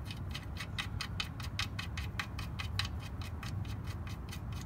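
Ratchet wrench clicking in a fast, even rhythm, about six clicks a second, as the oil pan's drain plug bolt is turned back in.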